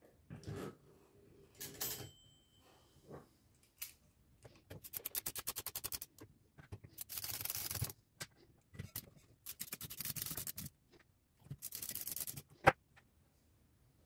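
Olivetti Lettera 22 portable typewriter being handled upside down: a fast run of ratcheting clicks, then several scraping metal slides of about a second each as the carriage is moved. One sharp click near the end is the loudest sound.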